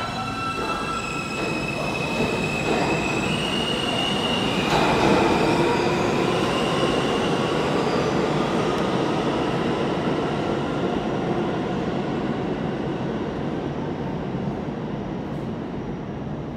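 New York City Subway R160 train running through the station on steel wheels, with a motor whine that steps up in pitch over the first few seconds and wheels squealing. It is loudest about five seconds in and then slowly fades as the train moves off.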